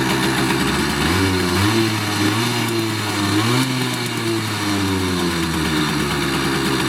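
Simson S51 B1-4's 50 cc single-cylinder two-stroke engine idling, blipped up in pitch in a couple of steps about a second in, then settling back to idle about five seconds in. It carries a high jingling rattle that the owner doubts is normal for an engine rebuilt with a new crankshaft.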